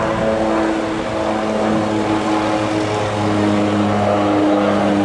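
OV-10B Bronco's twin turboprop engines and propellers running as the aircraft flies past: a steady hum of several tones that shifts slightly in pitch about three seconds in.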